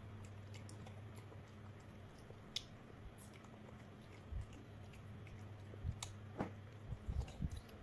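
Faint scattered clicks and small ticks over a steady low hum, with a cluster of soft low knocks in the last couple of seconds.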